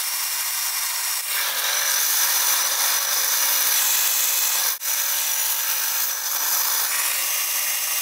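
Shop vacuum running with a loud, steady hiss as it sucks water out of a front-load washer's drain pipe. A lower steady hum comes in after about a second and a half, and the sound briefly drops out near the middle.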